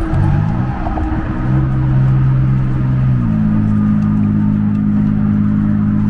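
Motor traffic on the highway lanes beside the bridge walkway: a vehicle engine hum over a steady rumble, rising in pitch just after the start and stepping up again about three seconds in.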